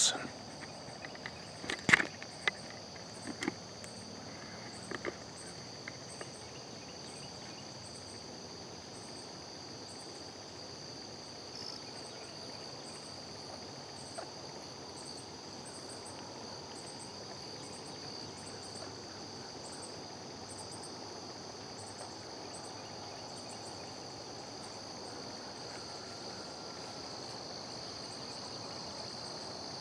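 Steady chorus of insects in summer grass: a continuous high-pitched trill with a shorter chirp repeating above it about once a second. A few sharp knocks sound in the first few seconds.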